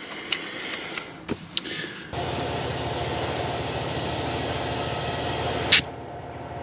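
A few light clicks, then a diesel tractor engine running steadily, coming in abruptly about two seconds in. A sharp click near the end, after which the engine sound drops back.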